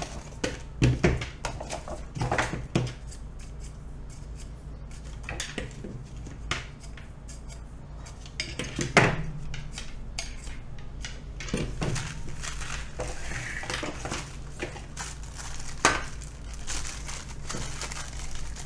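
Thermaltake Riing 14 RGB case fans being unpacked by hand: plastic fan frames knocking and clicking against the box and a wooden desk, with packaging rustling, over a steady low hum. The knocks are scattered, the loudest about nine seconds in.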